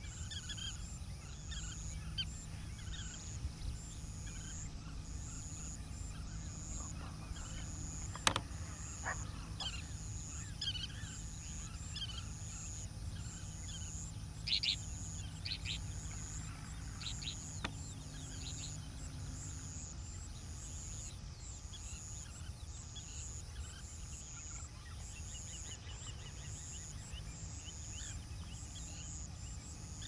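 Birds calling in short, scattered chirps, with a louder cluster of calls about halfway through and a sharp click about eight seconds in. A high buzz pulses about once a second over a steady low rumble.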